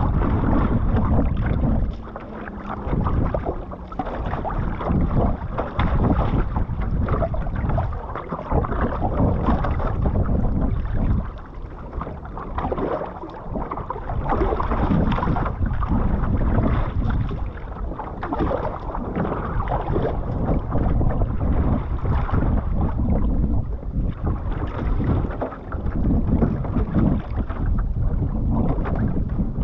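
Wind buffeting the microphone over water sloshing and splashing along a one-person outrigger canoe as it is paddled on the open sea, rising and falling unevenly.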